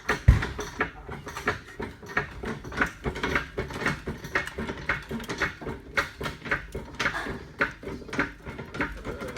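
Irregular clanks and clicks of tools and metal car parts being handled, with a heavy low thump just after the start.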